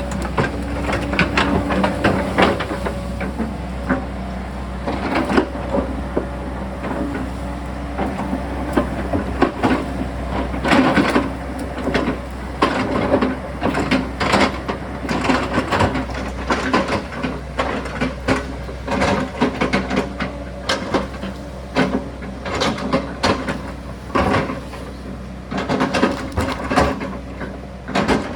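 Sany excavator's diesel engine running steadily under load, with many irregular knocks and clatters as the bucket works loose rock on the hillside.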